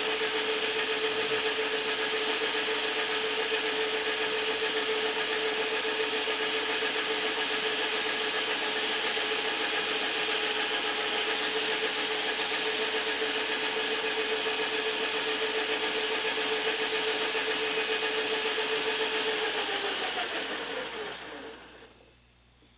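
Metal lathe running with a steady motor tone while taking a rough cut on a mild steel rod. About twenty seconds in it is switched off: the tone falls in pitch and the spindle spins down to silence.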